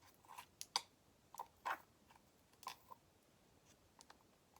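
Homemade glue slime being squeezed and stretched by hand, giving faint, irregularly spaced short sticky clicks and squelches.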